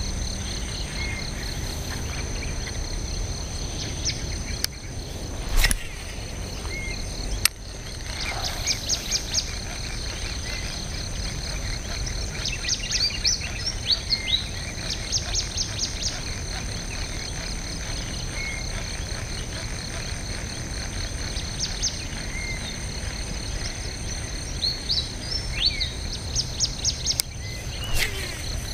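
Tropical riverside ambience: a steady high insect drone runs throughout, with birds calling in short rapid chirping trills again and again, over a low rumbling background. A few sharp clicks stand out, two of them several seconds in and one near the end.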